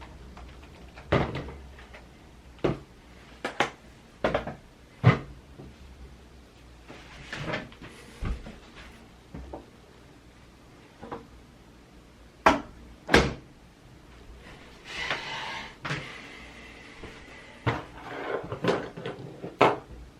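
Scattered sharp clicks and knocks of hard parts being handled and set down, some of them loud, with a short rustle about fifteen seconds in.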